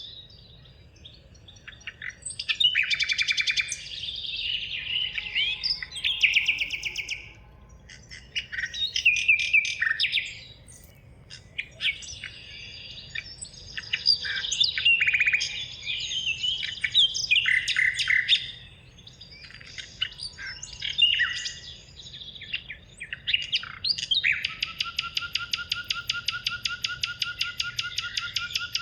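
Songbirds singing in a forest: bursts of quick, varied chirping phrases, and from near the end a long, evenly repeated rapid trill.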